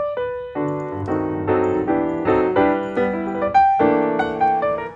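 Background piano music: a quick run of notes and chords.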